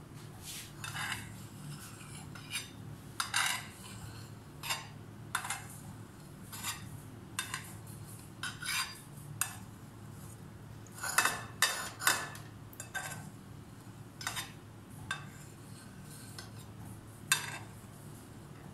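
A knife blade scraping and clicking against a plate while cutting set jelly into pieces: a series of short strokes at irregular intervals, with a cluster of louder ones about two-thirds of the way through, over a faint steady low hum.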